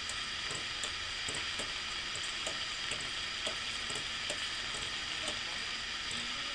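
Kerosene being pumped through a siphon pump into a kerosene heater's tank: a steady hiss with faint, irregular small clicks.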